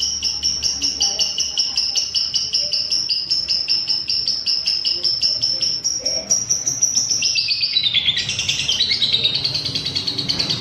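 Lovebird 'ngekek': a long, unbroken run of rapid, shrill chattering notes, about four or five a second, which turns lower and more jumbled about two-thirds of the way through and breaks off near the end.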